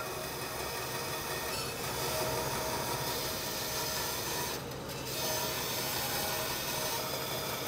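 Bandsaw blade resawing a hardwood board, fed slowly by hand: a steady noise from the cut over the saw's low running hum, dipping briefly a little under five seconds in.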